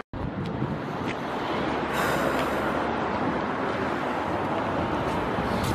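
Outdoor city ambience: a steady rush of street traffic mixed with wind on the microphone.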